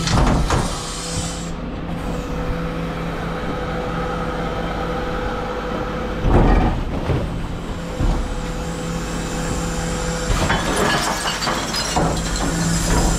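Rear-loading dustcart's bin lift raising and emptying a large four-wheeled communal bin into the hopper and lowering it again, with the truck running and a steady whine through the lift. Loud knocks about six seconds in as the bin is shaken at the top, and knocks and clatter near the end as it comes back down.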